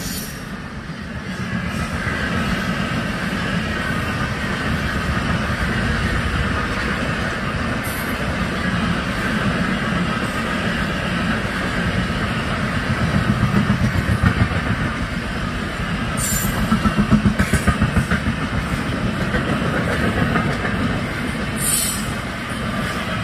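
Express train coaches passing at speed: a steady rumble and rush of steel wheels on rail, with runs of rhythmic clickety-clack as wheel sets cross rail joints about midway through and a few brief sharp high clicks.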